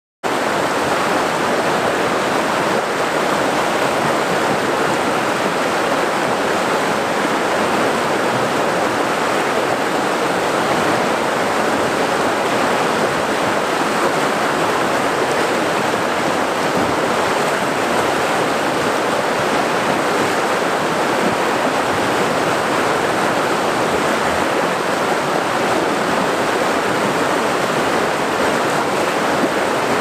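River rapids rushing over rocks: a steady, unbroken wash of white water.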